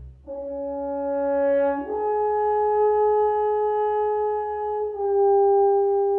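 Solo French horn playing a slow, sustained melody: three long held notes, the second a leap higher than the first, the third a step lower.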